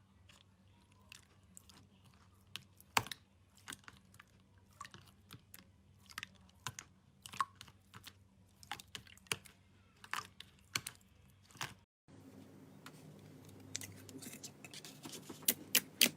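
Slime being squeezed and pressed, giving irregular small sharp clicks and crackling pops. About twelve seconds in, a steady low hum comes up under them.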